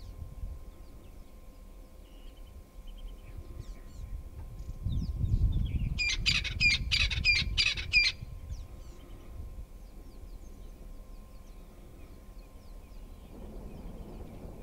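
Animal calls in the open: a quick run of about eight high, harsh squawking calls, about four a second for roughly two seconds midway through, with faint scattered chirps around them and a low rumble just before.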